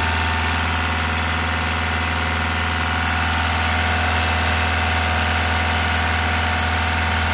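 Volkswagen Polo TDI diesel engine idling steadily while its water pump circulates coolant, the cooling system being bled of air.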